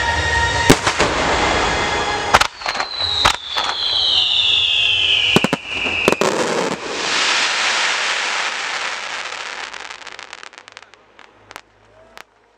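Aerial fireworks: sharp bangs of shells bursting, a long whistle falling in pitch over about three seconds, then a wash of crackling that fades away, leaving a few last pops near the end.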